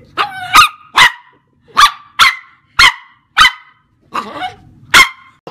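Dog barking repeatedly: about nine short, sharp barks at uneven intervals, some coming in quick pairs.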